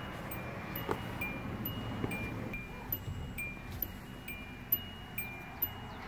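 Hyundai Accent's key-in-ignition reminder chime beeping steadily, about two short high beeps a second, with a few light clicks.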